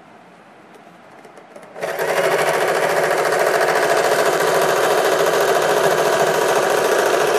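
Electric sewing machine starting about two seconds in and then running steadily at speed, stitching along an elastic waistband.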